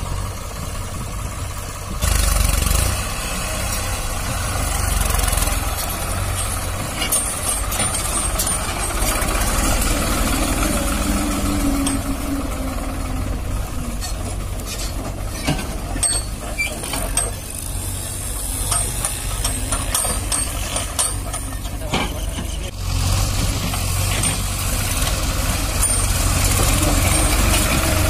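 New Holland 3600-2 tractor's diesel engine running under load while hauling a heavily loaded sand trailer, getting louder about two seconds in. Scattered knocks and rattles are heard through the later part.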